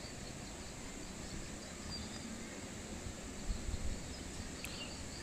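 Quiet, steady background noise with faint high chirping, typical of outdoor ambience.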